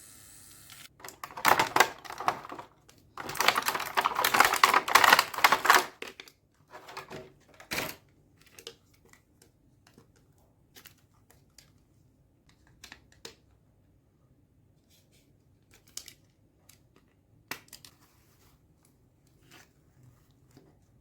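Handling of a toy makeup set and its plastic packaging: several seconds of dense rustling and tearing, then scattered light clicks and taps of small plastic pieces.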